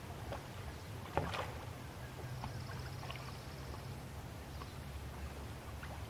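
Canoe paddles dipping and splashing in calm lake water, with scattered soft strokes and one louder, sharper stroke about a second in, over a steady low rumble.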